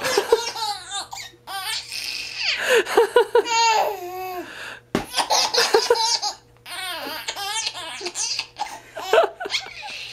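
Baby laughing in repeated bursts with short pauses between, one of them a quick run of short "ha-ha-ha" pulses about three seconds in.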